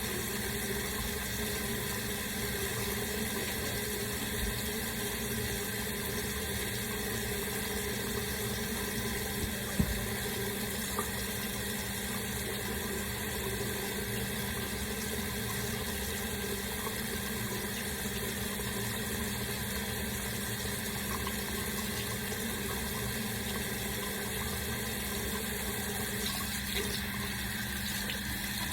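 Tap water running steadily, with a single brief knock about ten seconds in.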